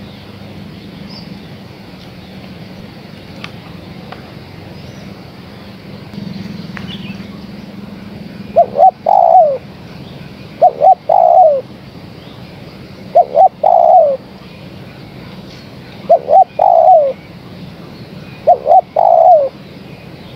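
Female spotted dove cooing, a lure call meant to draw males. After about eight seconds of background hiss, it gives five calls about two and a half seconds apart. Each call is two short notes followed by a longer, falling coo.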